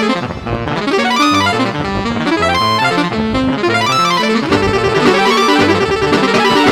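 Computer-sequenced music in which a telolet basuri bus-horn sound plays the melody over a steady beat and bass line. About four and a half seconds in, the melody settles on one long trilled note.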